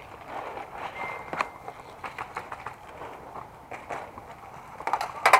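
Footsteps and gear clatter of an airsoft player on the move, with scattered sharp clicks and a louder cluster of clacks near the end.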